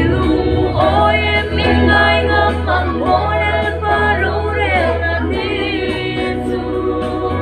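A small mixed group of men and women singing a song together in several voices, over low held notes that change about five seconds in.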